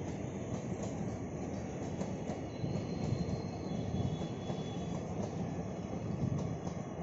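Passenger train coaches rolling past on the track: a steady rumble of steel wheels on rail. A faint, high wheel squeal comes in for a second or two midway through.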